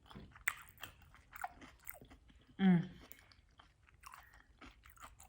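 A person chewing rice-paper sushi rolls with avocado, cucumber and imitation crab, with soft wet mouth smacks and clicks. A short voiced sound from the eater comes about halfway through.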